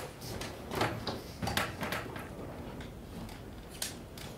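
Handling noise as a pleated paper blind is picked up: a few short knocks and rustles, the sharpest about a second in and again near the end.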